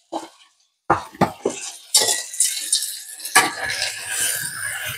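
Seasoning shaken from a shaker over potatoes in a frying pan: a few separate taps at first, then about two seconds in a dense, steady rattling shake that picks up again in the second half.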